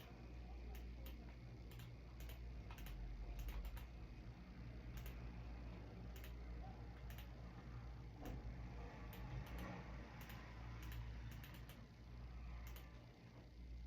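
Faint, irregular clicking of computer keyboard keys, a few scattered presses at a time, over a low steady hum.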